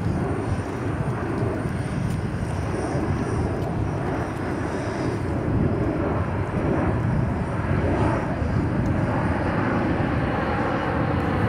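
Airbus A321XLR jet airliner flying overhead, its two turbofan engines making a steady, even jet rumble as it banks through a display pass.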